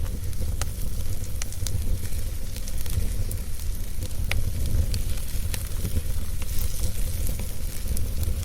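Wood fire crackling in a fireplace: irregular sharp pops and snaps scattered over a steady low rumble of the burning.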